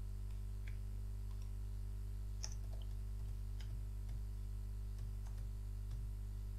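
Computer keyboard keystrokes: a handful of faint, irregularly spaced clicks as a short command is typed, over a steady low hum.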